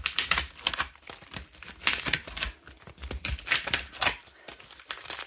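Foil trading-card packets and clear plastic wrapping crinkling as they are handled, a quick irregular run of sharp crackles.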